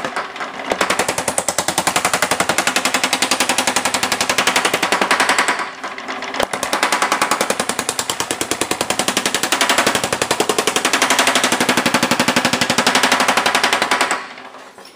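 Small Yoder LK90 power hammer running with thumbnail shrinking dies, striking a sheet-metal panel in a fast, continuous rattle of blows to shrink it. It pauses briefly twice and stops near the end.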